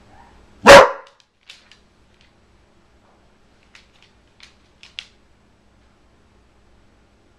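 A corgi gives a single loud bark. Afterwards come a few faint ticks, likely its claws on the hardwood floor as it steps about.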